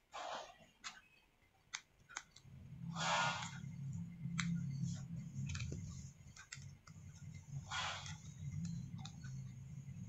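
Small clicks and taps as ribbon-cable connectors are pressed onto a MacBook Air logic board with fingers and a plastic spudger. Three short hissy swishes come at about the start, three seconds in and eight seconds in, and a low hum starts about two and a half seconds in.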